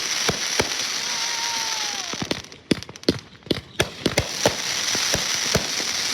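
Fireworks going off: a dense hissing spray with one short whistle falling in pitch about a second in, then a run of sharp bangs and crackles over another spell of hiss.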